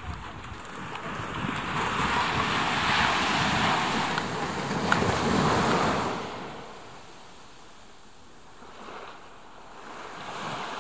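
Small waves washing up a sandy beach: a long hiss of surf that swells, holds and then fades about two-thirds of the way through, followed by softer lapping of the water.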